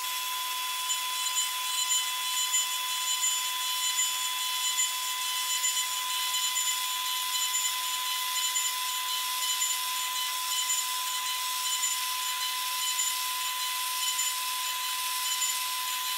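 CNC engraving spindle running at 24,000 rpm with a 0.5 mm V-bit cutting into brass: a steady high whine with light, uneven cutting noise over it.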